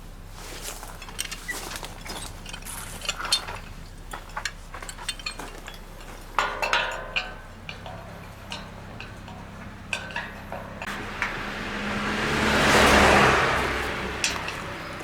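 Small metal clicks and clinks of hardware being handled, then a car passing by, its sound rising and fading about eleven to fourteen seconds in.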